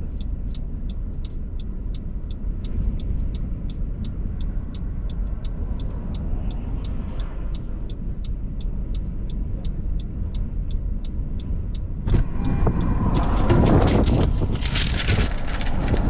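Strong gusty wind buffeting a parked car, heard from inside as a steady low rumble, with a fast regular ticking of about four or five a second. About twelve seconds in, the ticking stops and a much louder rush of wind with clattering comes in.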